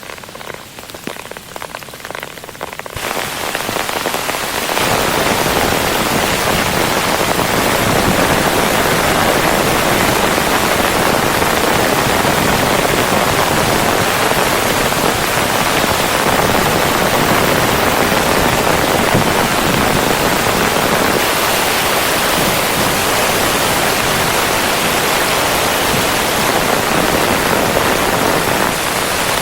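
Rain, beginning as scattered separate drops and filling in within about five seconds to a dense, steady downpour.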